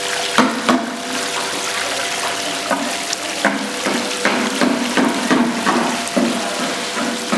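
Water pouring and splashing steadily over a decorative waterfall fountain during a test run, with irregular sharper splashes.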